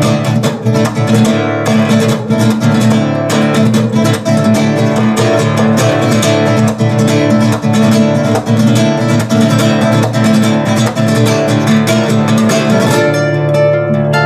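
Instrumental guitar music, quick plucked and strummed notes, played through a Dynaco ST-70 tube stereo amplifier and its speakers, with no hum audible.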